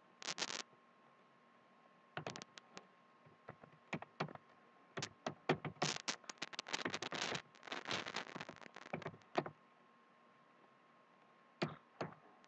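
Computer keyboard keys clicking in irregular runs of typing, densest in the middle and ending with a few last keystrokes, under a faint steady electrical tone.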